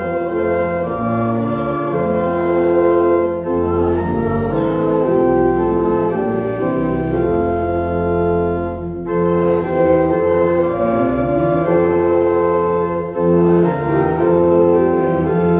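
Organ playing a slow passage of held chords, with short breaks about nine and thirteen seconds in.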